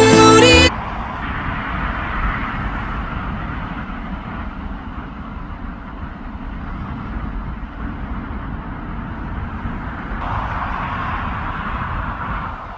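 The song's music cuts off within the first second. A steady background rumble with a hiss follows, with no pitched sound in it, and it grows brighter for a couple of seconds near the end.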